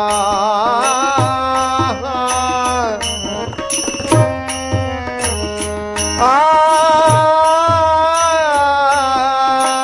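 Marathi abhang sung by a man's voice over harmonium, with tabla and small hand cymbals (taal) keeping a steady beat. The voice drops back in the middle and comes in again about six seconds in on a long held note.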